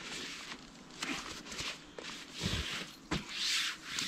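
Hammock fabric and sleeping bag rustling in a series of irregular swishes as a person shifts about in the hammock, with two soft thumps in the second half.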